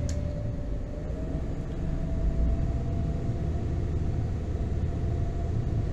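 Trawler yacht's inboard diesel engine running steadily underway, heard on board as a low rumble with a faint steady whine above it.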